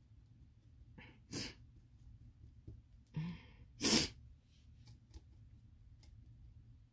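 A person sneezing once, about four seconds in: a short voiced intake, then a loud burst of breath. A shorter, quieter burst of breath comes about a second in.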